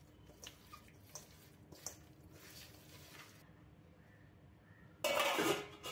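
Raw chicken pieces squished by hand with ginger garlic paste in a steel bowl: a few soft, wet squelches. Near the end, a brief, much louder noise lasting about half a second.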